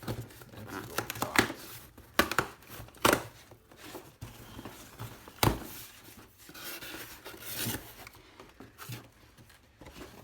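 A cardboard shipping box being opened by hand: tape and cardboard tearing in several sharp rips, with crinkling and rustling of the packing between them.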